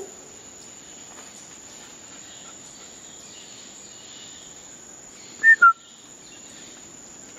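Rainforest background with a steady high-pitched insect drone, and about five and a half seconds in, a bird's short call of two quick notes falling in pitch.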